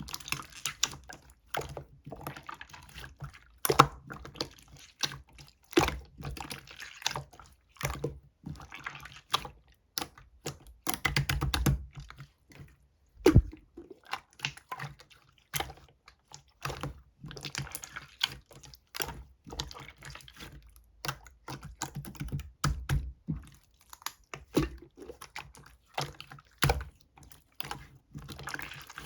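Clear slime being squeezed and pressed by hand, making dense, irregular clicks and small wet pops.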